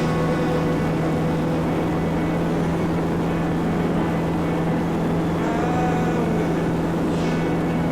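Cessna 172's piston engine and propeller running in flight, a steady, even drone with no change in power.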